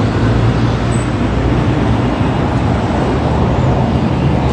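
Steady road traffic noise, a continuous rumble with a low drone and no distinct events.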